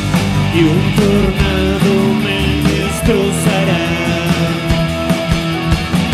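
Live rock band playing: drum kit, electric guitar and synth keyboards, with a man singing over them.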